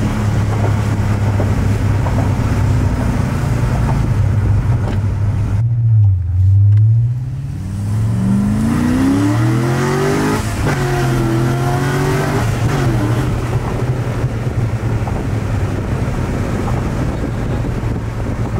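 C6 Corvette Z06's 7.0-litre LS7 V8 through long-tube headers, a catless X-pipe and stock NPP mufflers, heard from inside the cabin. It cruises with a steady low drone, then about eight seconds in the revs climb hard under acceleration. The pitch breaks off at an upshift about ten and a half seconds in and settles back to a steady cruising drone.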